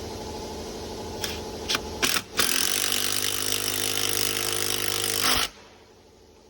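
Power drill running under load, driving screws into brickwork. It grows louder and harsher about two seconds in and cuts off suddenly near the end.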